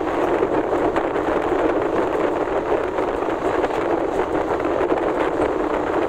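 Duronto Express passenger train running at speed, heard from an open door or window: a steady rush of wheels on rail with faint clicks scattered through it, mixed with wind buffeting the microphone.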